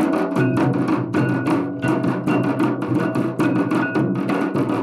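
Folk drum ensemble: rope-laced barrel drums beaten with sticks and hand cymbals clashing, in a fast, steady rhythm of about six strokes a second with a ringing tone over it.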